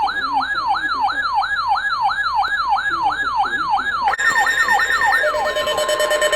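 Electronic yelp siren, its pitch sweeping up and down about three times a second. About four seconds in a steady alert tone comes in over it, and the sweeps stop shortly before the end, leaving the steady tone.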